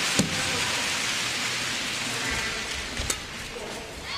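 Arena crowd noise, a steady hiss of clapping and chatter that slowly fades. Two sharp racket strikes on the shuttlecock cut through it, one just after the start and one about three seconds in.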